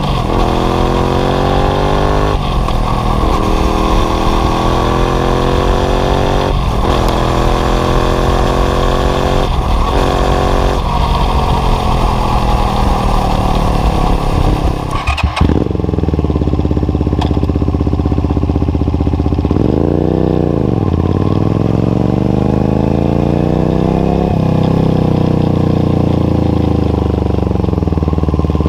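Honda VTR250 V-twin running through an LCI Parts short stainless muffler with the baffle fitted, accelerating and shifting up through several gears, with wind rushing past. After a cut, the same bike idles with the baffle removed, gives a quick rev about 20 seconds in, and is revved up again near the end.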